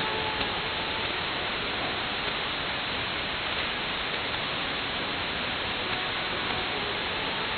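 Shortwave static and hiss from an SDR receiver in synchronous AM, tuned to a very weak pirate broadcast on 6925 kHz. The station's audio barely shows through the noise as faint tones near the start and near the end.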